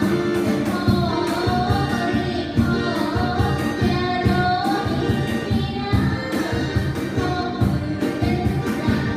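A live band plays a song with a singer carrying the melody over a steady drum beat.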